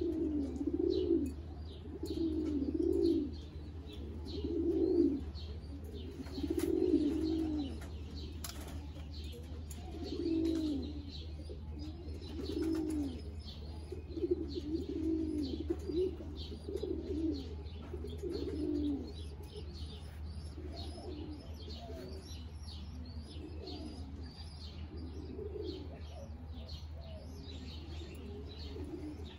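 Pigeons cooing over and over, the coos coming every second or two and loudest through the first twenty seconds, with quick high chirps over them.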